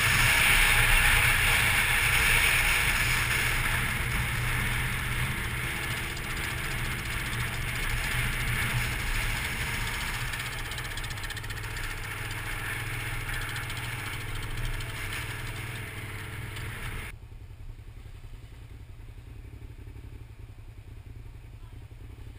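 A motorcycle engine running under a rush of wind over a helmet-mounted microphone, the wind noise easing as the bike slows. About two-thirds of the way through the wind noise drops out suddenly, leaving a low engine throb at walking pace.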